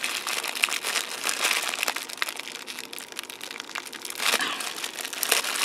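Small clear plastic bags crinkling and rustling as they are handled, a dense run of quick crackles.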